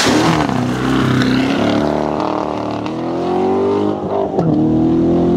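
Chevrolet Corvette Stingray's V8 engine revving hard under acceleration, its pitch climbing, dropping briefly about four seconds in, then climbing again.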